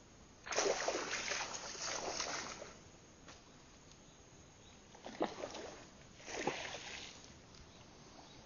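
Splashing at the water surface right beside the boat as a hooked toman (giant snakehead) thrashes: one long burst of splashing about half a second in, then two shorter splashes later on.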